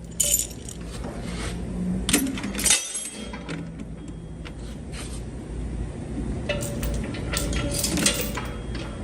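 Metal pulling equipment clinking and rattling in scattered sharp knocks as the panel pull is rigged again, with a busier run of clinks near the end.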